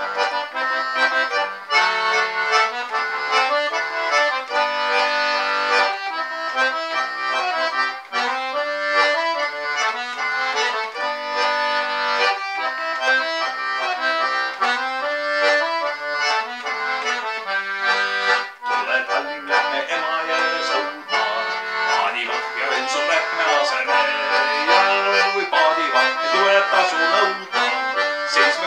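Button accordion playing an instrumental passage of a folk song: a melody on the treble buttons over a steady pattern of bass notes.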